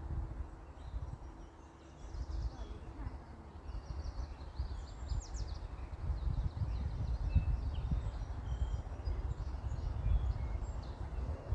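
Outdoor ambience: wind buffeting the microphone, with small birds chirping in short calls scattered through it.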